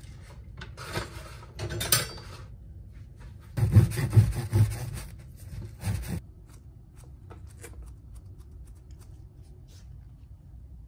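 Serrated bread knife sawing through the hard crust of a sourdough loaf on a wooden cutting board: rasping strokes, loudest about four seconds in, then much quieter with only faint ticks.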